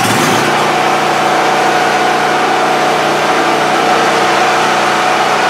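Firman P03501 portable gas generator running steadily just after starting, unloaded, with an even engine hum.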